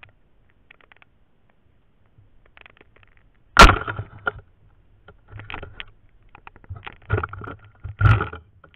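Footsteps wading through a shallow ditch, each step a splash of water. A loud splash comes about three and a half seconds in, and three more follow at irregular intervals near the end.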